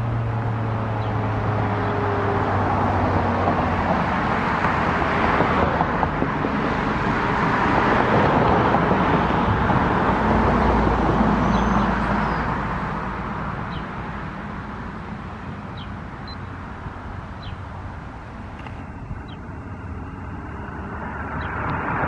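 Federal Signal 2001-SRN mechanical siren winding down at the end of its Alert signal, its falling tone fading out within the first few seconds. After that comes a loud, even rushing noise, like passing road traffic, that is loudest around the middle and eases off later.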